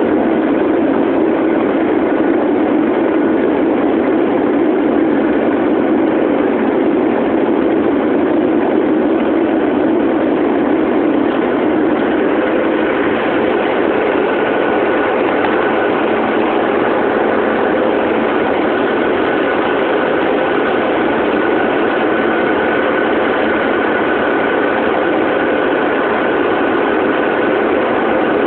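Boeing 777 jet engines and airflow heard inside the passenger cabin in flight: a loud, steady rush with a faint high engine whine that grows plainer about halfway through.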